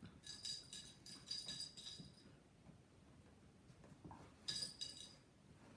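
A small bell in a cat's toy ball jingling as kittens bat it about: a spell of about two seconds, then another brief jingle about four and a half seconds in.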